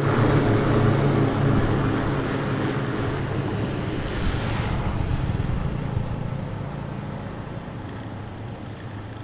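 A motor vehicle engine running with a steady low hum over a rushing noise, slowly fading away.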